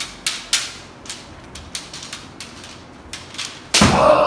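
Bamboo kendo shinai clicking and tapping together in irregular light clacks as two fencers probe with crossed blades. Near the end a sudden loud shout breaks in as an exchange begins.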